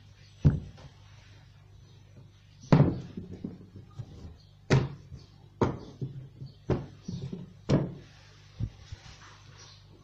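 Wooden rolling pin and a sheet of dough knocking on a table as the dough is rolled, the pin set down and the dough lifted and turned: about seven sharp knocks, some in quick pairs.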